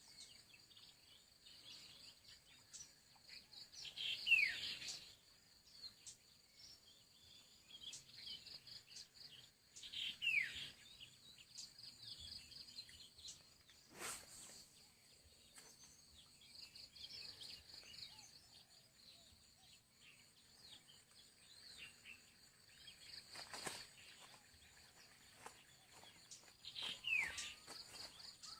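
Outdoor rural ambience: a steady high-pitched insect drone, with three short falling bird whistles about four seconds in, about ten seconds in, and near the end. A couple of faint sharp clicks are also heard.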